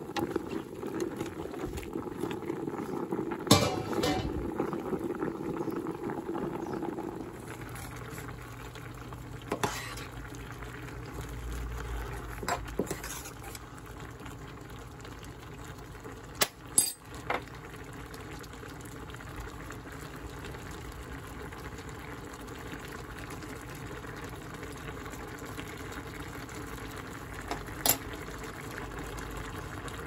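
Water boiling and bubbling in a steel pot of sliced bamboo shoots, stirred with a wooden spoon; about 7 seconds in the bubbling changes to a pot of shredded bamboo shoot soup at a rolling boil. A few sharp knocks come through, the loudest about 3 seconds in.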